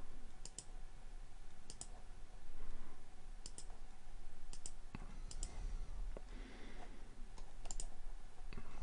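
Computer mouse button clicking about six times, spaced out, each click a quick press-and-release pair.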